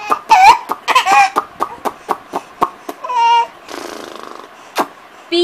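Baby's short high-pitched squealing vocalizations, twice in the first second and a half and once more near the middle, over a run of quick light clicks or taps at about five a second.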